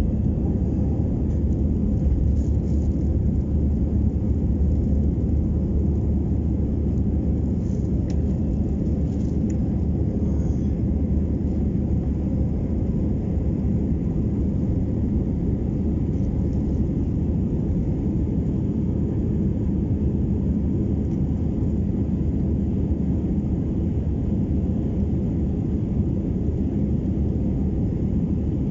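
Steady low rumble of an Airbus A319 airliner's engines and airflow, heard from inside the passenger cabin.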